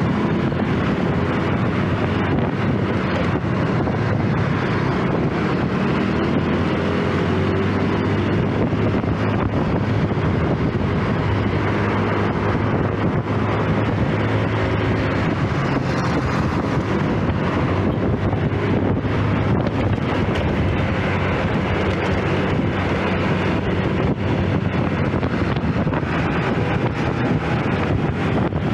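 Honda automatic scooter's engine running at a steady cruise, with wind rushing over the microphone and road noise.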